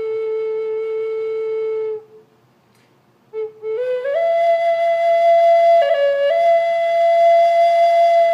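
Native American flute playing a slow solo melody: a long held low note that stops about two seconds in, a brief breath pause, then a short climb of notes up to a long higher held note.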